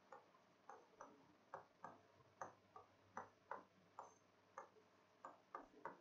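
Faint, irregular ticks and taps of a pen on an interactive whiteboard's screen while a word is written, roughly two a second.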